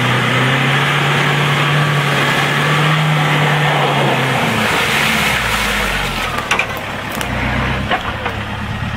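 Land Rover Defender driving slowly through deep mud, its engine holding a steady note for about four seconds, then dropping to a low rumble as it passes close by, with a few sharp clicks and knocks near the end.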